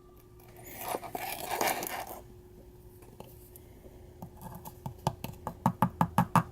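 A scoop of G Fuel drink powder poured into a plastic shaker cup, a soft rushing pour lasting about a second and a half. Then a run of quick light taps, about four a second, getting louder near the end.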